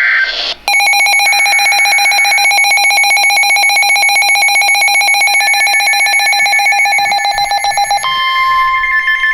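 NOAA weather radio receiver alerting to a new warning: a short burst of data tones, then a shrill, rapidly pulsing electronic alarm beep. About eight seconds in it switches to a steady tone of about 1 kHz, the weather-radio warning alarm tone.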